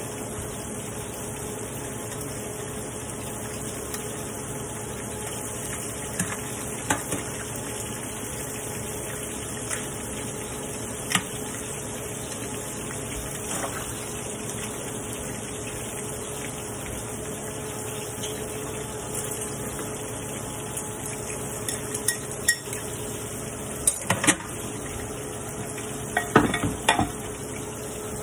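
Breaded shrimp frying in hot oil in a frying pan, a steady sizzle. Scattered clinks of glass dishes and utensils are handled over it, with a cluster of clinks and knocks near the end.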